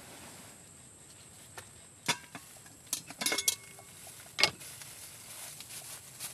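A few sharp metallic clanks and clinks of a steel cooking pot and its lid being handled, some with a brief ring, the loudest a single knock about two-thirds of the way through.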